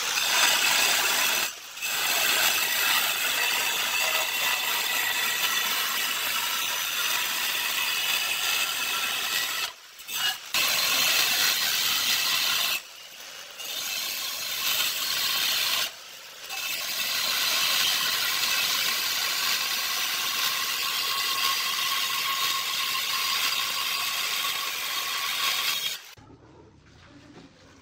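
Handheld angle grinder cutting ceramic tile: a harsh, steady grinding with a high motor whine. It breaks off briefly about two and ten seconds in, drops quieter for a few seconds midway, and stops about two seconds before the end.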